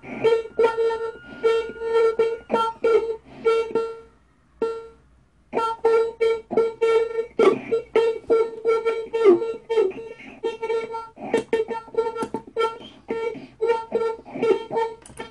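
Circuit-bent children's talking alphabet desk sounding through its small speaker: a stuttering run of short electronic notes, mostly on one pitch, a few a second. It breaks off about four seconds in and starts again about a second and a half later.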